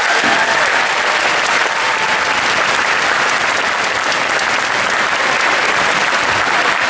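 Large audience applauding steadily, with a voice or two calling out near the start.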